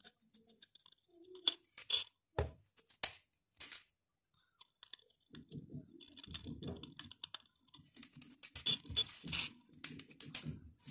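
Small sharp clicks and taps of painting tools and metal bottle caps handled on a tabletop, a few separate ones at first, then from about halfway through a few seconds of denser rustling handling noise with more clicks.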